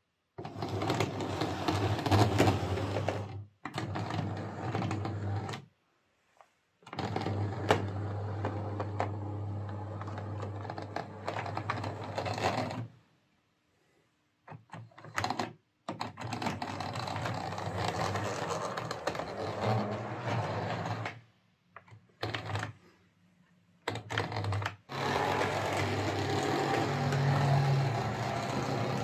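Hornby Class 142 Pacer OO gauge model's motor and drive wheels running along the track with a rough mechanical buzz. It cuts out to silence several times and starts again, the stalling of a poor electrical pickup, with drive wheels that run rough.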